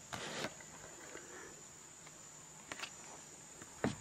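Faint, steady high-pitched chorus of insects in late-summer woodland, crickets or katydids, with a brief rustle in the first half-second and a few soft clicks near the end.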